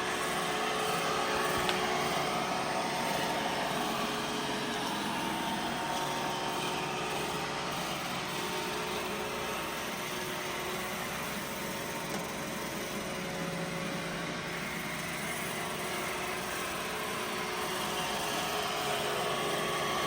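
iRobot Roomba robot vacuum cleaning, a steady motor and suction whir with a few steady tones in it.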